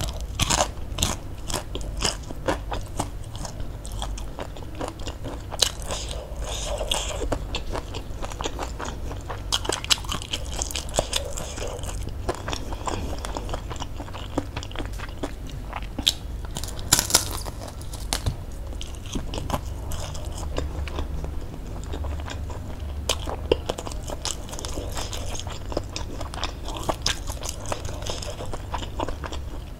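Close-miked crunching and chewing of fried wonton (pangsit goreng): many sharp, irregular crunches as the crisp skins are bitten and chewed, the loudest about halfway through.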